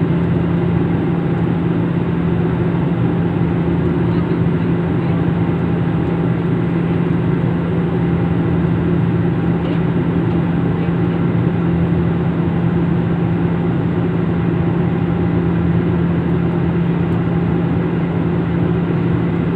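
Steady drone of an aircraft in flight, a constant low hum with no change in level.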